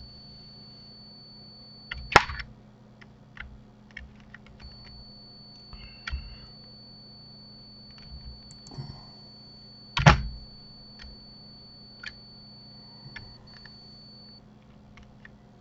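Scattered keystrokes and clicks at a computer keyboard and mouse, with two much louder clacks about two seconds in and again about ten seconds in. A faint steady high whine and low hum run behind.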